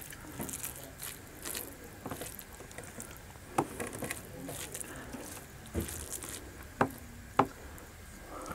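Rice and meat being mixed and squeezed by hand in a metal plate: soft wet squishing, with a few sharp clicks in the second half.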